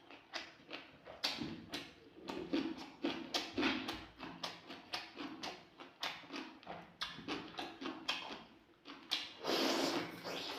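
Close-miked eating sounds: wet chewing and lip smacks on chicken curry and rice, a quick irregular run of short clicks, with a longer, louder mouthful about nine and a half seconds in.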